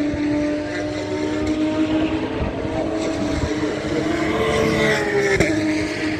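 Racing car engines running out on the circuit: one holds a steady note while another rises and then falls in pitch about four to five seconds in.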